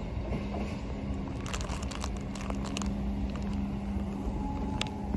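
Freight train of box wagons rumbling away into the distance, over a steady low engine drone, with a few sharp clicks from about a second and a half to three seconds in and another near the end.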